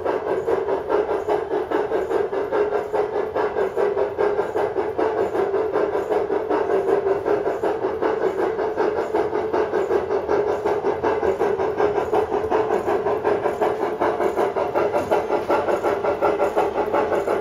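Large-scale model steam locomotive running, giving a rapid, even steam chuff over a steady hum.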